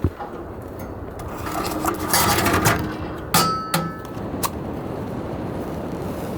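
Steady rushing background noise, with a thump at the start, a short clatter, then a few sharp metallic clinks about three to four and a half seconds in, the first ringing briefly.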